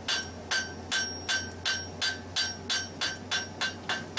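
Hand hammer striking hot steel on an anvil in a steady rhythm, about two to three blows a second and quickening slightly, each blow with a short metallic ring. The smith is forging the sloped scarf on the bar's end to prepare it for a forge weld.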